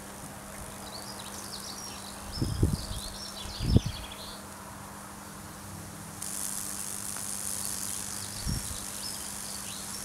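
High-voltage microwave-oven-transformer rig burning a Lichtenberg figure into wet plywood: a steady transformer hum under the crackle and sizzle of current arcing through the wood as it chars and steams. About six seconds in, a louder hiss sets in, and there are a few dull thumps.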